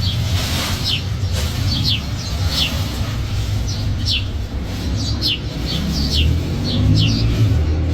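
A bird calling over and over, short high chirps that sweep downward, one or two a second, over a steady low rumble.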